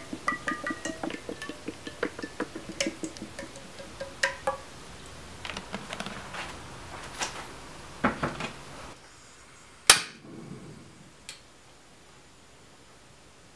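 Liquid poured into a metal saucepan: rapid glugging and splashing with light clinks over the first few seconds, then scattered small ticks, and one sharp click about ten seconds in.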